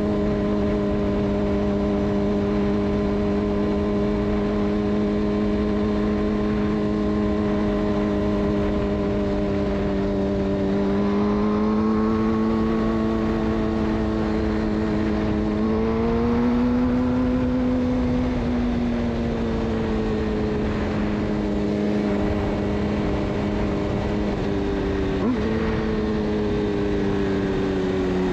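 Suzuki GSX-R600 inline-four through a de-catted Yoshimura exhaust, running at a steady engine speed with light throttle changes: the pitch climbs a little twice midway, eases off, then jumps up sharply near the end and falls away. A steady rush of wind and road noise lies underneath.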